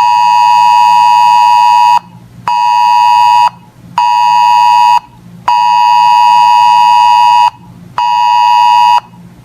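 Weather radio alert alarm: a loud buzzing tone near 1 kHz beeping in a repeating pattern of one long beep of about two seconds and two short beeps of about a second, signalling an incoming weather alert.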